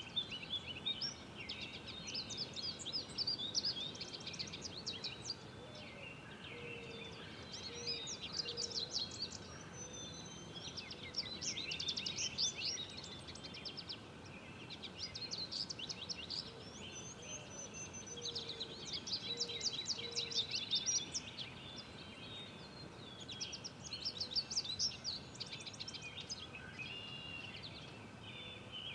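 Several songbirds singing, with overlapping phrases of rapid chirps and trills. Twice, a faint low call repeats in a run of several notes.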